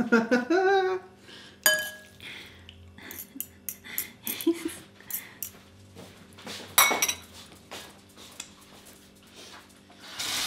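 Metal utensils clinking and scraping against a glass mixing bowl as noodles are tossed in sauce: a run of irregular light clicks, with two louder ringing clinks, one near the start and one past the middle.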